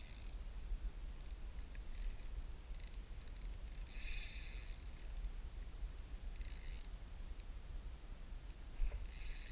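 Fishing reel cranked in four short bursts, a gritty mechanical whir as line is reeled in. A steady low rumble of wind on the microphone runs underneath.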